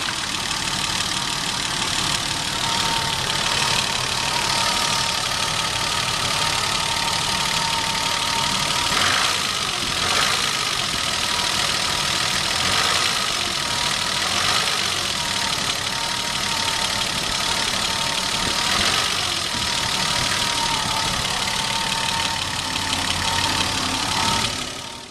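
BMW E30's M20B25 2.5-litre straight-six running steadily at idle with a knocking in it, which the owner suspects is piston slap or rod knock. A thin steady whine rides over the engine, and the sound stops abruptly near the end.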